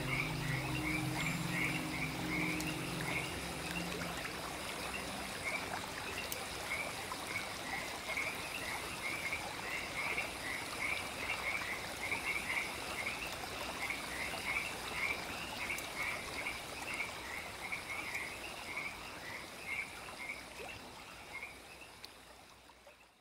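Night ambience of frogs calling in a chorus of short, rapid chirping croaks, with a faint high pulsing hum above them. A low drone tone dies away in the first few seconds, and the chorus fades out near the end.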